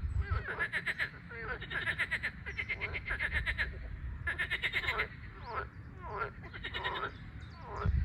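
Frogs calling: repeated rattling croaks, each a fast run of pulses lasting under a second, with a few short downward-sliding calls after the middle, over a steady low rumble.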